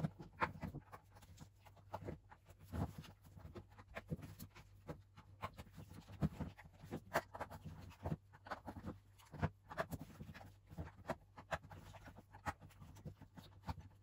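Irregular soft taps and scuffs of hands working a silicone mold, popping out chocolate-topped peanut cookies, turning them over and pressing them back in. A faint steady low hum runs underneath.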